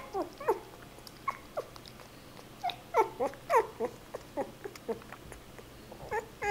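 Hungry newborn puppy squeaking and whimpering while being bottle-fed: many short, high cries that fall in pitch, coming in irregular bunches and loudest about three seconds in.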